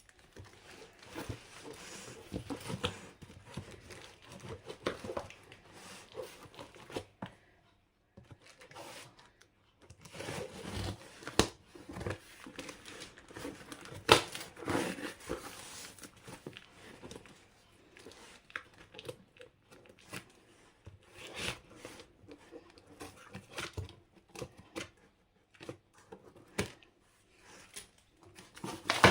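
Parcel packaging being torn open and crumpled by hand, in irregular rustling, crinkling bursts with a few sharp crackles and short pauses.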